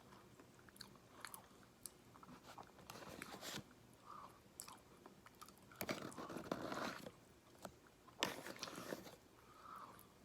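Close-miked mouth sounds of chewing and biting food, with crisp crunches and wet clicks, swelling in louder bouts about three, six and eight seconds in.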